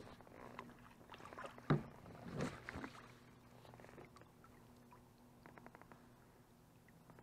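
Faint handling noise from a fishing kayak and a spinning rod and reel. A sharp knock comes about a second and a half in, then a short rustle, and a quick run of small clicks later on.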